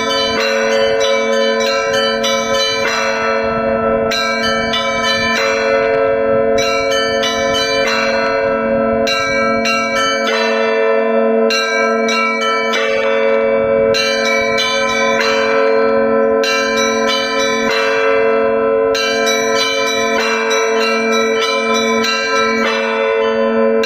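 Russian Orthodox church bells rung from a bell tower in the zvon style: the lower bells hum steadily beneath quick, repeating figures struck on the small bells.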